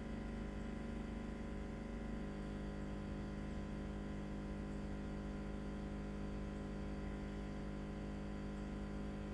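A steady low hum with many even overtones, unchanging throughout.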